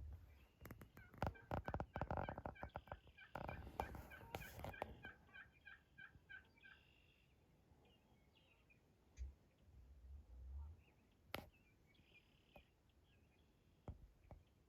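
Wild turkey tom gobbling: a rapid, rattling run of repeated notes in the first half. A single sharp click comes a few seconds later.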